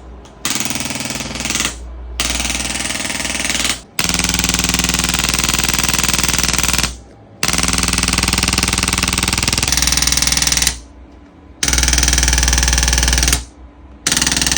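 A Pulstar chiropractic adjusting instrument firing rapid, evenly spaced mechanical impulses into the spine. It comes in about six loud runs of one and a half to three seconds each, with short pauses between them as it is moved to the next spot.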